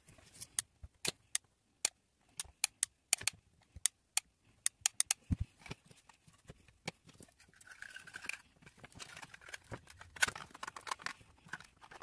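Hands handling small cardboard and plastic model-house parts and wire on a tabletop, in sped-up footage. Sharp, irregular clicks and taps run for the first five seconds or so, then a denser rustling with clicks.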